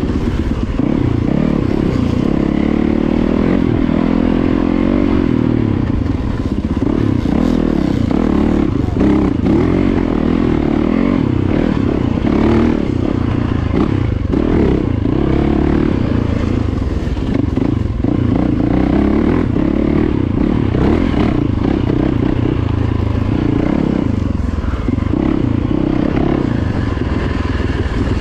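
Yamaha dirt bike engine running on the move, its note rising and falling with the throttle as the bike is ridden along a rough dirt trail, heard from on board the bike.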